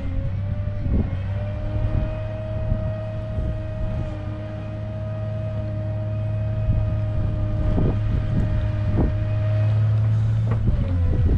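Tractor's diesel engine running steadily as its front loader pushes rubble along a stone heap, with a steady whine over the engine that dips in pitch near the end. A few sharp knocks of stone stand out.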